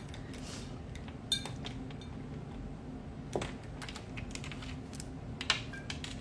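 A few scattered light clicks and taps of small hard objects being handled, over a faint steady hum.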